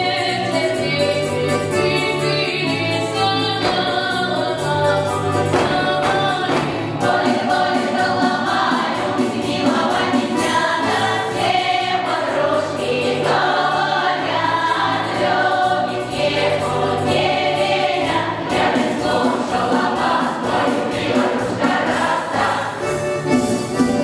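Russian folk song-and-dance ensemble singing in chorus, women's and men's voices together, with steady low accompanying notes underneath.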